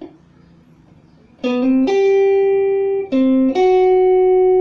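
Electric guitar playing a slow melody. About a second and a half in, a short note steps up to a higher note held for over a second, and the same pattern comes again about three seconds in.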